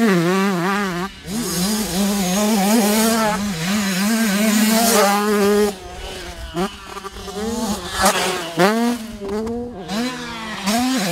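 Husqvarna TC85 85cc two-stroke motocross bike engine revving hard under a rider, its pitch rising and falling with the throttle. It quietens briefly about halfway, then gives several quick rising revs near the end.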